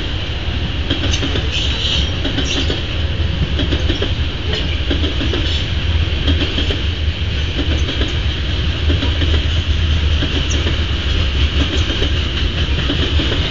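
Freight train of grain cars rolling past: a steady low rumble of wheels on rail, with clicks from the wheels passing over rail joints.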